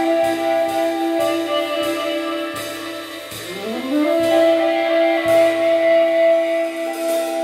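Free-jazz duo: a tenor saxophone run through electronic effects holds long notes, sliding up to a new pitch about three and a half seconds in. Loose drum-kit hits and cymbal washes play around it.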